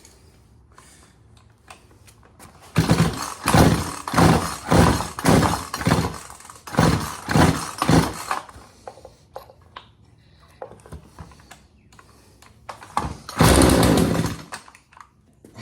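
Poulan Pro PP4218A 42cc two-stroke chainsaw being pull-started after a carburettor clean. It cranks in a quick run of short bursts about twice a second, then gives one longer burst near the end.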